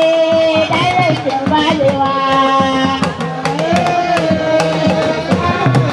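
Music with drums: fast drum strokes under a melody of long held, slightly wavering notes.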